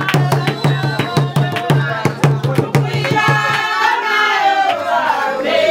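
Music with a fast, steady drum beat that stops about three and a half seconds in, leaving voices singing.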